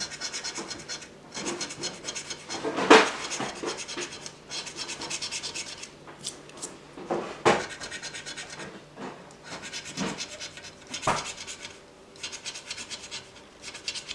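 A coin scratching the coating off a lottery scratch-off ticket: runs of quick back-and-forth scraping strokes, with a few sharper, louder strokes.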